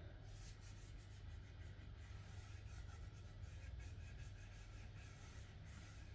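Faint, soft rubbing of an application pad working oil finish into sanded wood, in quick repeated strokes, over a low steady hum.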